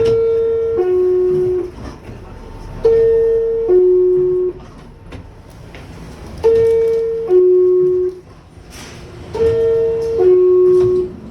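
R62A subway car door chime: a two-note descending ding-dong, a higher tone falling to a lower one, sounded four times about every three seconds over background noise. It is the warning that the car's doors are closing.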